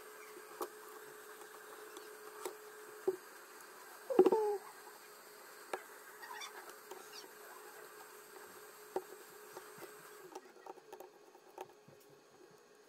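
Small clicks and taps of hands and a plastic pry tool handling an opened smartphone's parts, with one brief, louder squeak about four seconds in, over a steady faint hum.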